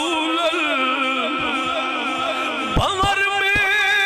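A man singing a long, wavering held note of a devotional refrain in Punjabi, moving up to a higher note about three seconds in.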